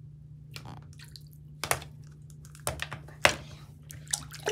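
Plastic toy dinosaur dipped and moved in shallow water in a bathroom sink: a handful of small, irregular splashes, drips and plastic knocks against the basin.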